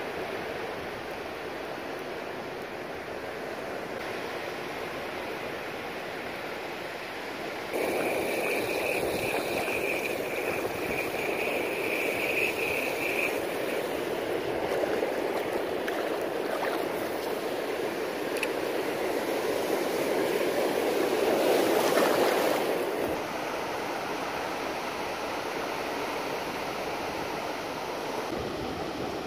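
Surf washing on a beach, heard as a steady hiss of waves and water in a few cut-together shots. After about eight seconds the sound jumps to a louder, closer wash of shallow water, with a thin steady high tone for about five seconds. About two-thirds of the way through it drops back to a quieter, more distant surf.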